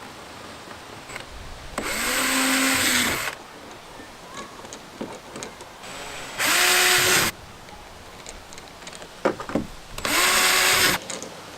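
Power drill with a 5/32-inch bit run in three short bursts, each spinning up, holding and winding down, drilling mounting holes for an aluminum track into a plastic kayak. A few sharp knocks come just before the last burst.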